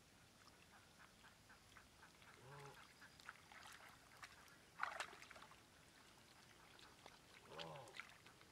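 Faint wet clicks and squelches of bare hands digging in soft mud, with a short louder burst of noise about five seconds in and two brief calls, one about two and a half seconds in and one near the end.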